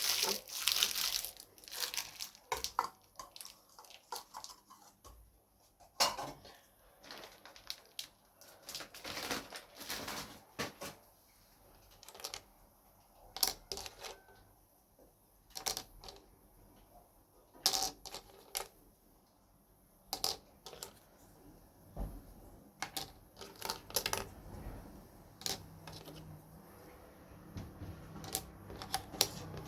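Irregular clicks, taps and rustles of small plastic toys and their packaging being handled and opened, with short quiet gaps between.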